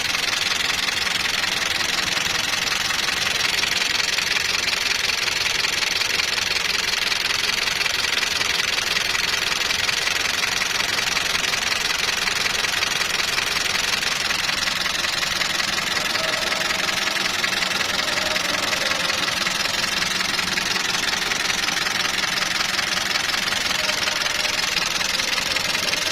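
Toyota Land Cruiser Prado's 2TR engine running steadily just after a cold start, with a fast, even ticking clatter from the top end. The mechanic first suspects the tappets: hydraulic lash adjusters gone hard, which he says makes this noise at morning starts.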